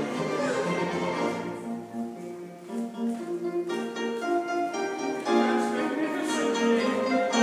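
Instrumental classical-style music accompanying a dance, a melody moving in distinct, separate notes.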